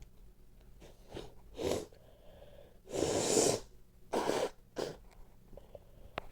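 A person with a congested nose sneezing: a few short breaths, then a loud sneeze about three seconds in, followed by a second, shorter one about a second later.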